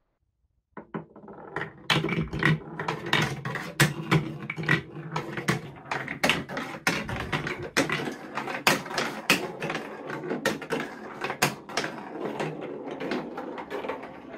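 A ball rolling along a marble-run track of plastic and wooden pieces, a steady rumble broken by many sharp clicks. It starts about a second in.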